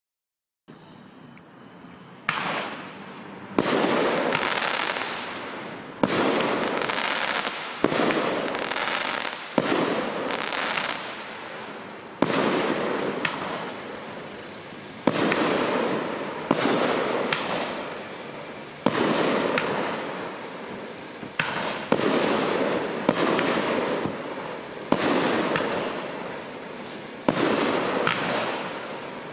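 A 200-gram, 16-shot consumer firework cake (multi-shot 'flaming balls' repeater) firing its shots in sequence, about one every one to two seconds. Each shot is a sharp bang followed by a noisy hissing tail of a second or more.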